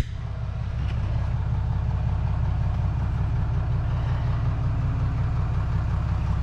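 2019 Ram 2500's 6.7-litre Cummins turbo-diesel straight-six idling steadily.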